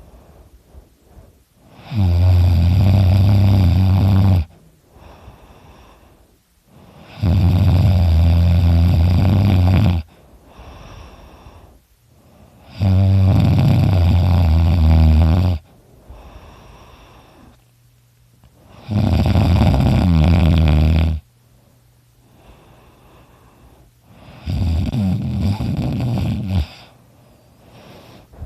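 A man snoring loudly in deep sleep: five long snores, each about two and a half seconds, coming roughly every five and a half seconds, with quieter breathing in between.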